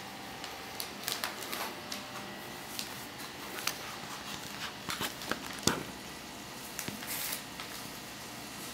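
Gift wrapping paper rustling and crinkling in short, irregular bursts as a cat pushes its head into it and paws at it.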